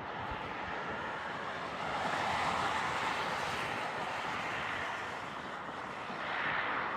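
Jet airliner engines, a steady rushing noise that swells about two seconds in and again near the end.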